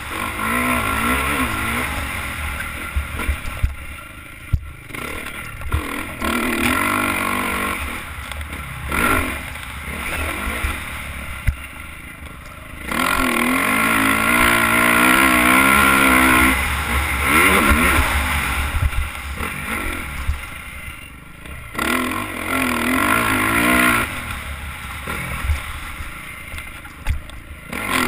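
Motocross dirt bike engine heard from the rider's helmet, revving hard down the straights and dropping off the throttle into the corners several times, with wind and track rumble underneath.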